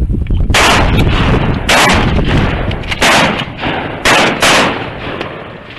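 Shotgun blasts at ducks overhead, about six shots in a ragged volley over roughly four seconds.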